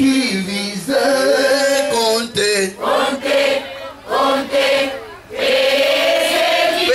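Several voices singing a chant together, in short phrases and ending on a long held note.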